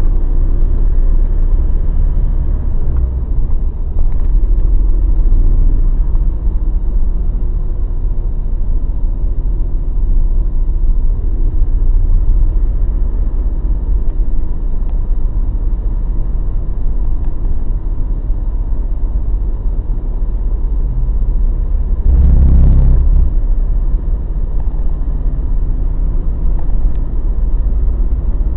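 Mazda BT-50 pickup with its 2.5-litre diesel running while driving: a continuous low rumble of engine and drivetrain, with one heavier thump well past the middle.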